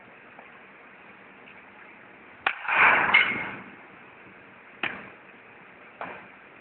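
A baseball bat being swung in drills: a sharp knock and a short rushing swish of about half a second, then two lighter single taps, the last from the bat tip set down on the home plate.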